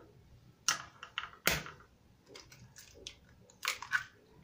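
A hen's egg tapped against a glass mixing bowl and its shell cracked open by hand: a handful of sharp clicks and taps, the loudest about a second and a half in, then a quick run of cracking near the end.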